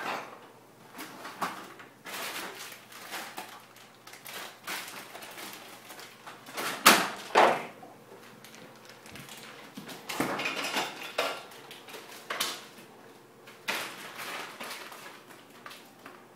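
Kitchen handling sounds as the cheese for an omelet is got ready: irregular scrapes, rustles and knocks in short clusters. The loudest is a pair of sharp knocks about seven seconds in.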